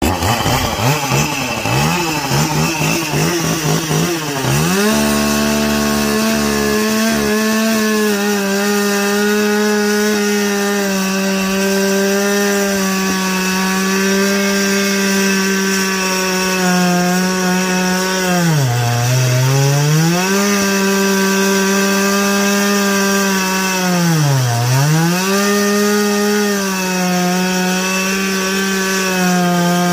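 Echo two-stroke gas chainsaw running at low, uneven speed, then revved to full throttle about five seconds in and held there while cutting through thick black walnut. Twice the engine speed drops sharply and climbs back up.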